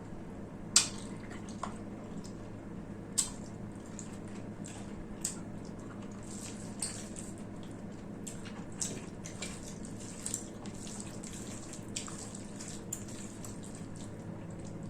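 Wet chewing and lip-smacking sounds of someone eating curry and rice: a string of short, sharp smacks every second or two over a steady low hum.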